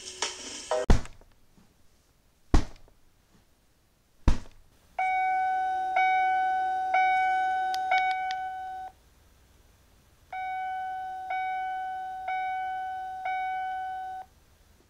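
Three sharp knocks about a second and a half apart, then a car's dashboard warning chime dinging about once a second in two runs, with a short pause between them.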